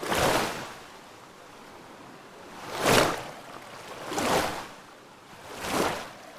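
Water rushing in repeated surges: four swells of rushing noise that rise and fade, at the start and about three, four and a half and six seconds in, with a faint steady hiss between them.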